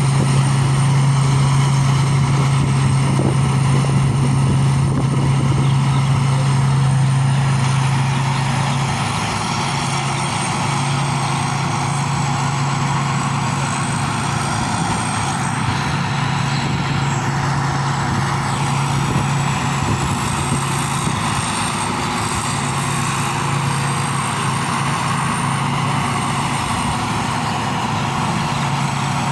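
Rice combine harvester's engine running steadily with a deep, constant hum, dropping slightly in level about nine seconds in.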